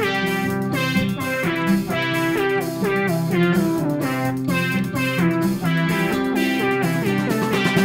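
Background music: a plucked guitar melody over a steady beat.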